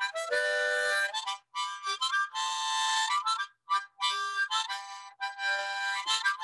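Harmonica played in short phrases: quick runs of notes alternating with chords held for about half a second, with brief gaps between phrases.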